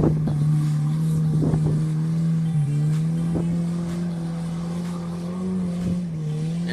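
A 4x4's engine running at steady revs under way off-road, its note held nearly constant with small dips and rises.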